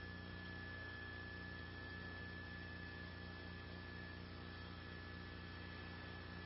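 Steady electrical hum and hiss with a thin, faint, high steady whine: line noise on the broadcast audio feed.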